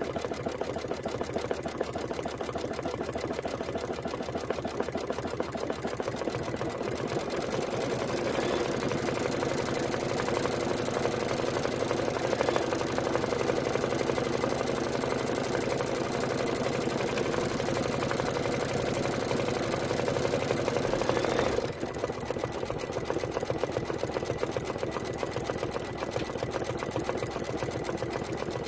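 Computerized embroidery machine stitching out a design in the hoop: a steady, rapid run of needle strokes. It drops slightly in level about three-quarters of the way through.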